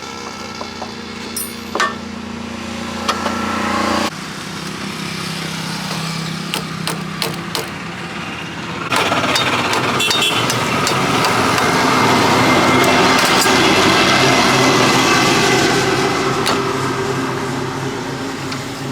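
Motor engines running, with a few sharp knocks partway through. A louder rushing noise sets in about halfway, swells and then fades toward the end.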